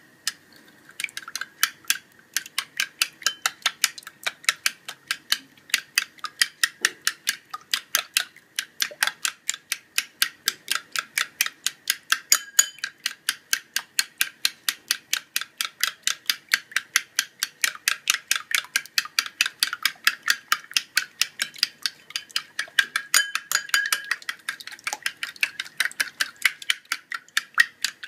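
Raw eggs beaten by hand with a fork in a ceramic bowl, the fork clicking against the bowl in a fast, even rhythm of about four strokes a second, starting about a second in.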